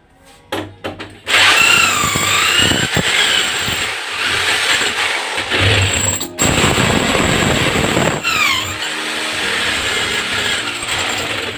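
Corded electric drill boring into a ceramic wall tile. It starts about a second in, runs steadily, stops for a moment about halfway, then starts again.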